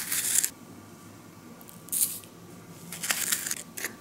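Foil-lined paper powder packet crinkling as it is pulled open and handled, in four short crackly bursts, with a plastic scoop going into it near the end.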